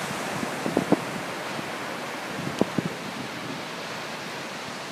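Ocean surf breaking on a sandy beach with wind buffeting the microphone, a steady rushing noise. Two pairs of short, sharp thumps stand out, about a second in and again midway.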